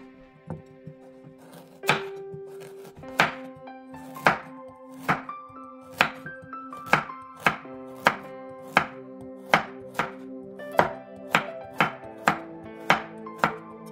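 A chef's knife slicing carrots into rounds on a bamboo cutting board: a sharp knock each time the blade hits the board, starting about two seconds in and repeating one to two times a second, getting quicker toward the end. Background music plays underneath.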